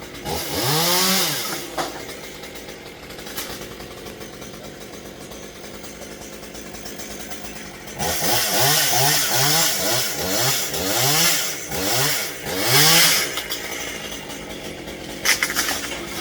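Chainsaw engine revved once, left idling, then blipped in about seven quick revs before dropping back to idle.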